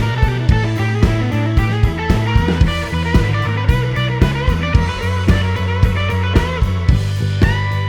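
Background rock music with a guitar and a steady drum beat.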